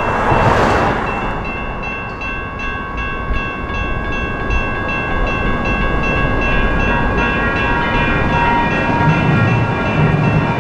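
Railroad crossing electronic bell (GS Type 1 e-bell) ringing in quick, even strokes, several a second, while a light rail train passes with a steady rumble underneath. A brief rush of train noise comes at the start.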